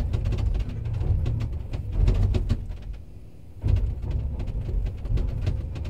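Komatsu PC210 excavator's diesel engine labouring under load while its bucket teeth scrape and chip at hard frozen ground, with repeated knocks and grinding as the machine rocks. The noise eases briefly about three seconds in, then picks up again.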